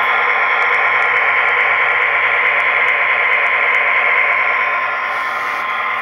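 Lionel O-gauge model trains running on three-rail track: a steady mechanical whir of motors and wheels, with a steady hum through it, easing off slightly about five seconds in.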